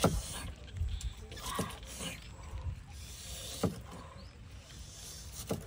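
Cleaver chopping an onion on a wooden chopping board: four sharp knocks, about one every two seconds.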